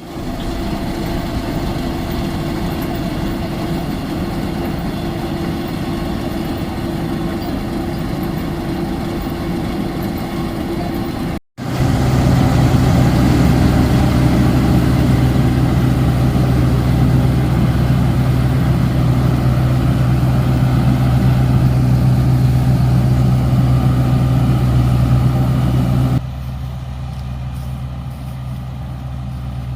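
Engine of a rice harvesting machine running steadily. After a brief break about a third of the way in, it comes back louder with a strong low hum, then drops to a quieter level a few seconds before the end.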